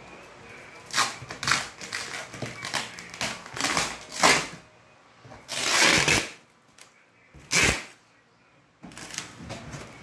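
Plastic wrapping and tape being cut with scissors and torn off a box, crinkling and ripping in a series of short bursts, with one longer rip about six seconds in.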